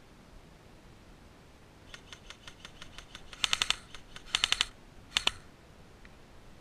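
Airsoft rifle firing: a few fainter single shots, then three short rapid bursts of sharp clicking shots, the last only two shots.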